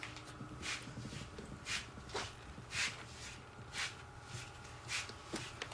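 Hands pressing and rubbing a coil of wet clay onto the base of a hand-coiled pot. They make soft, faint scuffing strokes, irregular and roughly one a second, over a low steady hum.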